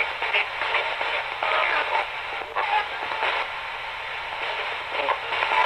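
Radio Shack 20-125 ghost box radio scanning through FM stations: steady static hiss broken by brief chopped scraps of broadcast voices, with a thin, band-limited sound.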